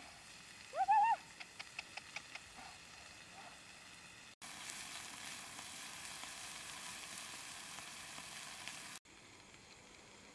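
A brief high-pitched rising voice about a second in, then a few light clicks. From about four seconds in, a steady, louder crackling hiss of a wood fire burning under a wok, which stops abruptly about nine seconds in.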